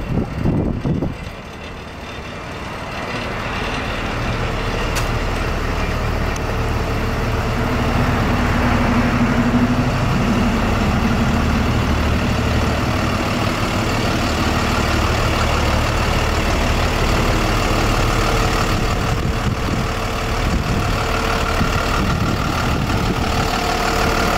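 The 6.7-litre Cummins ISB diesel of an International 4300 box truck idling steadily, growing louder over the first several seconds and then holding level.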